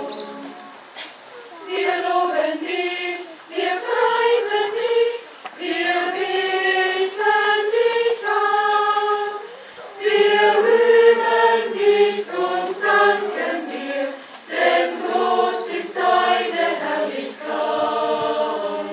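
Mixed choir of women's and men's voices singing, held notes in phrases of a few seconds with short breaks between them.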